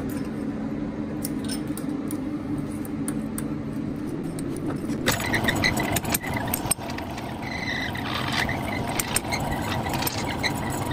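Metal lathe hums steadily, then about five seconds in gives way to rattling metallic clinks and scrapes as a T-handle chuck key is turned in the lathe chuck that holds a steel pin.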